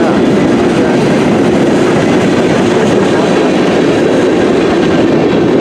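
CN M384 freight train's cars rolling past, a loud steady rumble of steel wheels on the rails.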